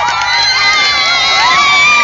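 Crowd cheering, mostly children shouting and screaming excitedly, many high voices overlapping.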